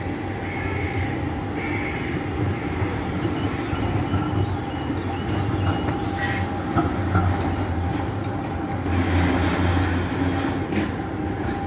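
VBZ Tram 2000 coupled set rolling past on curved street track: a steady low rumble with a constant hum, and a few sharp clacks of the wheels over the track near the middle and end.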